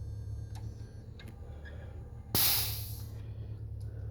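Compressed air hissing out for about a second as the compression tester's gauge is bled off after reading 180 psi, with a few faint clicks before it and a steady low hum underneath.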